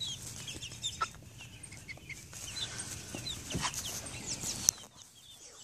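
A flock of seven-week-old chickens peeping and clucking, with many short high chirps scattered throughout. A single sharp click sounds near the end.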